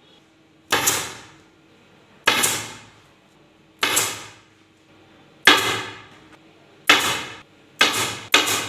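Pneumatic upholstery staple gun shooting staples through fabric into a bed panel, seven sharp shots that each tail off over about half a second. They come roughly one every second and a half, and the last two are closer together.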